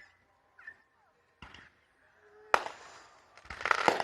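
Aerial fireworks exploding: one sharp bang about two and a half seconds in, followed by crackling, then a quick cluster of bangs and crackles near the end.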